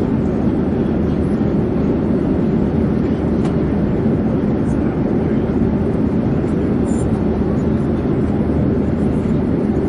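Airplane in flight: a steady, unchanging low drone of engine and air noise.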